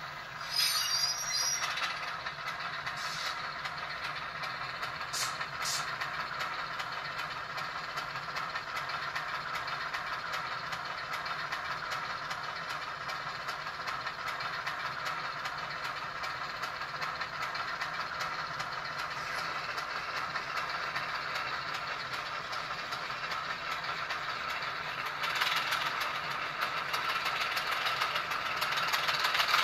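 Recorded diesel switcher engine sound played by an ESU LokSound V5 Nano decoder through a tiny 8x12 mm sugar cube speaker in an N scale VO-1000 model, running steadily. A short burst of higher sounds comes about a second in, and the engine sound grows louder and brighter about 25 seconds in.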